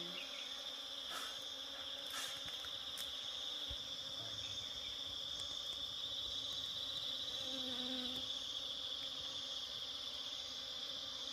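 Chorus of jungle insects: a steady, high, shrill trill that swells a little in the middle. A few faint clicks come in the first three seconds.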